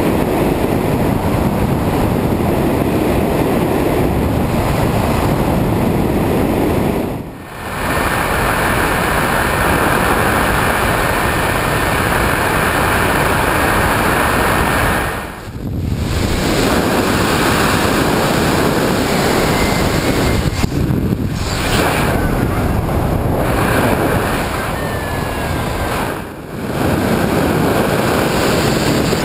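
Airflow rushing over the microphone of a camera on a hang glider in flight: a loud, steady rush of wind noise that dips briefly four times.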